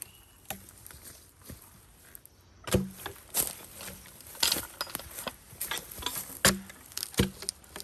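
A cedar log being levered and rolled over with peaveys: sharp wooden knocks and thuds as the log and the peavey hooks shift, with scuffing and crackling between. The loudest knock comes about three seconds in, with two more near the end.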